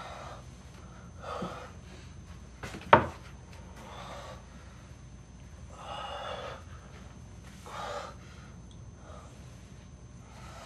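A man's heavy, distressed breathing and gasps: several ragged breaths a second or two apart. A single sharp thump about three seconds in is the loudest sound.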